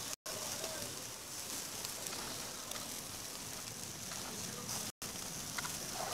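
Skewered barbecue meat sizzling on a charcoal grill: a steady hiss with faint crackles, broken by two brief dropouts in the sound.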